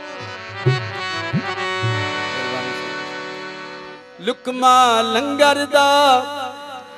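Harmonium holding sustained chords with a few hand-drum strokes in the first two seconds; about four seconds in, a male voice slides up and sings a loud, wavering, ornamented line without words over the harmonium.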